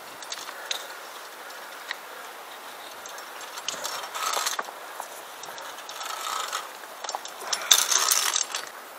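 Via ferrata carabiners clinking and scraping as they slide along the steel safety cable, with sharp metal clicks throughout. There is a louder bout of metal rasping about four seconds in and another near the end.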